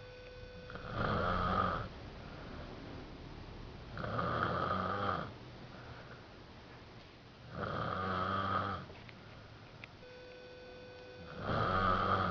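Snoring in slow, regular breaths: four snores, each about a second long, coming roughly every three and a half seconds, the last one near the end.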